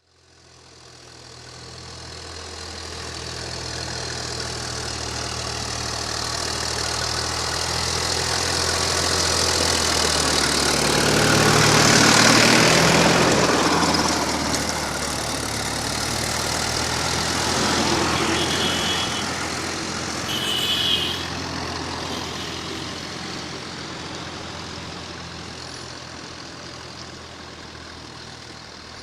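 Diesel tractor engine running under load while ploughing. It grows louder toward the middle as it comes closer, then slowly fades as it moves away. Two short high squeaks come about two-thirds of the way through.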